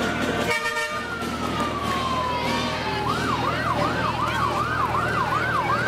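Emergency vehicle siren sounding a slow wail that falls away, then switching about three seconds in to a fast yelp that sweeps up and down several times a second.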